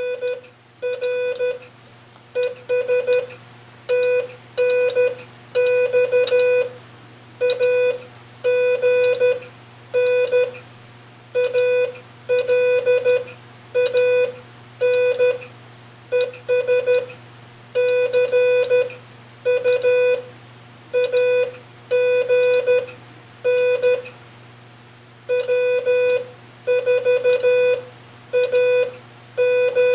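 Morse code (CW) tone keyed on and off in dots and dashes at a steady sending speed, a buzzy mid-pitched note with a faint steady hum underneath, with a brief break around two-thirds of the way through.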